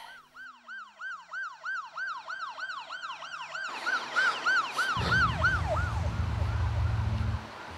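Emergency vehicle siren sounding a fast yelp, about three rising-and-falling wails a second, that fades away about six seconds in. A low steady rumble comes in about five seconds in.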